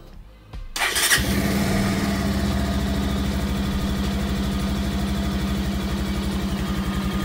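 Bajaj Pulsar 150 BS6 motorcycle's single-cylinder engine starting: a brief crank, catching about a second in, then idling steadily.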